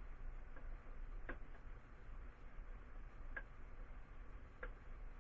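A few faint, short clicks at uneven intervals, about one a second, over a low steady background rumble.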